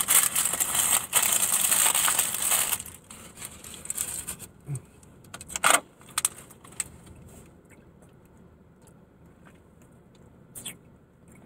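Potato chips crackling and crunching for about three seconds, followed by a few scattered clicks and taps.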